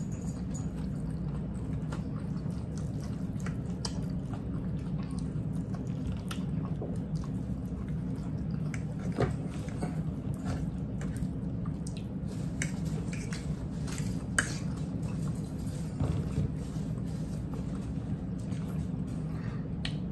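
People eating at a table: scattered small clicks and smacks of chewing, with a fork now and then against a plate, over a steady low hum.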